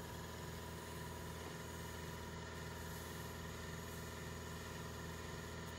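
A machine running steadily: a constant mechanical hum with a slight regular pulse and no change in pitch or level.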